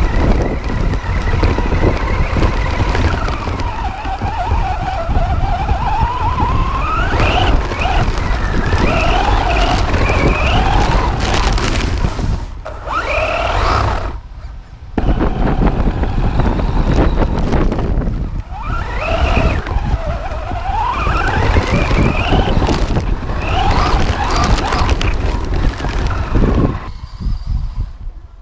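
RC car driven on pavement: its motor whine rises and falls in pitch again and again as it speeds up and slows down, over a constant rough rumble of tyres on the road. It dips briefly about halfway through and dies away near the end.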